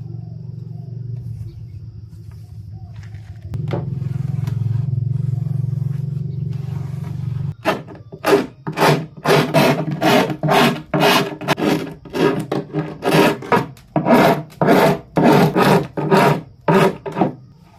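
For about seven seconds a low steady hum runs. Then come loud rhythmic back-and-forth rasping strokes, about two a second, of a hand tool working the edge of HPL laminate on a board.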